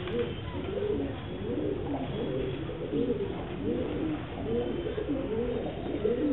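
Pigeons cooing, several at once, their low rolling coos overlapping and repeating without a break.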